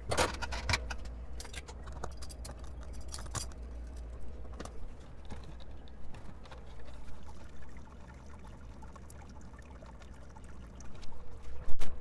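Wort pouring and trickling as it drains through the grain bed, over a low steady hum. Scattered clicks and knocks from hoses and kettle gear being handled, with a cluster of louder knocks near the end.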